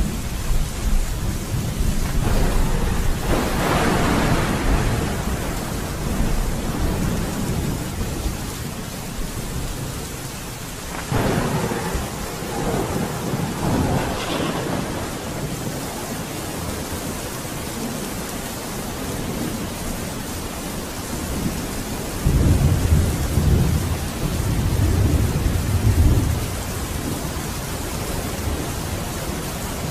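Steady rain with thunder rolling in three times: a swell a few seconds in, another near the middle, and a deep rumble later on.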